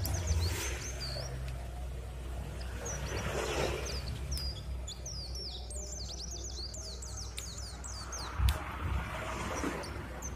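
Small birds chirping rapidly and continuously in the background over a steady low hum, with a dull thump about eight and a half seconds in.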